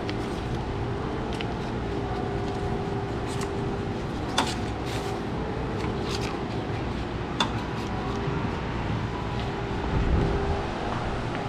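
Steady machine hum over a low rumble, with a few sharp clicks, the loudest about four and seven seconds in.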